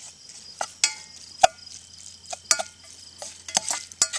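Irregular clinks and taps of metal cooking utensils against cookware, about eight sharp strikes with a short ring, the loudest about a second and a half in. A steady high insect chirring runs beneath.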